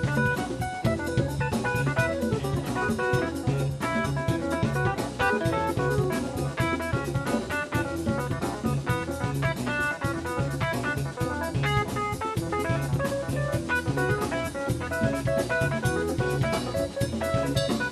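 Live rock band playing an instrumental passage: drum kit keeping a steady fast beat under electric guitar, bass and keyboards.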